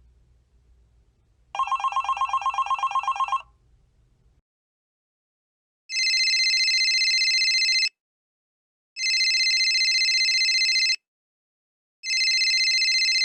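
A telephone ringing: first a rapid trilling ring lasting about two seconds, then a different, high, steady electronic phone ring that sounds three times, each ring about two seconds long with a one-second pause between.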